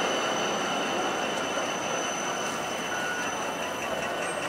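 A Helsinki city tram running on its rails as it pulls away, with a thin steady high squeal from the wheels, growing fainter as it moves off.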